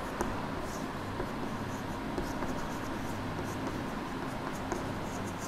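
Handwriting: short, irregular scratchy strokes of a pen or chalk on a writing surface, over a steady low hiss.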